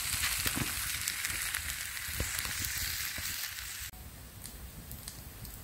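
Vegetables and tomato sauce sizzling in a frying pan. The sizzle cuts off suddenly about four seconds in, and a quieter hiss with a few faint crackles follows.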